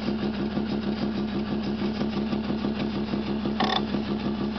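Freshly built fuel-injected Mazda 12A peripheral-port rotary engine idling with a steady pulsing rhythm while being run in. A brief sharp sound cuts in near the end.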